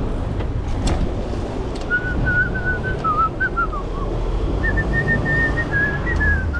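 A person whistling a short wavering tune in two phrases, the second one higher, over a steady rumble of wind on the microphone from riding a bike.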